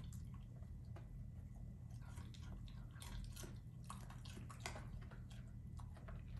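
A puppy chewing raw carrot: a string of small, irregular crunches and clicks, coming thickest in the middle.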